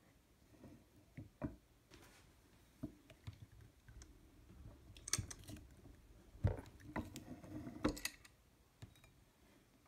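Light metal clicks and knocks from a steel dapping block and a Grizzly arbor press as the block is set in place and the press handle is worked to push a ball into the coin, doming it. The clicks are scattered at first, with a busier run of sharper clicks and knocks between about five and eight seconds in.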